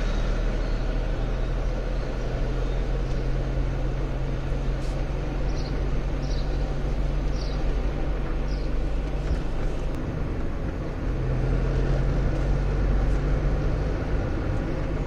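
A car's engine and road noise heard from inside the cabin while driving, a steady low hum that dips briefly about two-thirds of the way through. A few short, faint high chirps sound in the middle.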